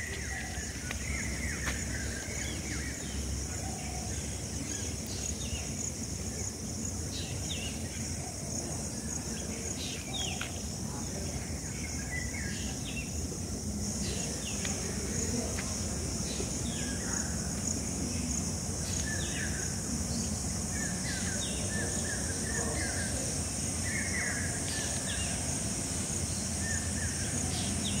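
Forest ambience: a steady high-pitched insect drone, with short bird calls and chirps scattered throughout, many of them quick falling notes. The insect drone gets a little louder about halfway through.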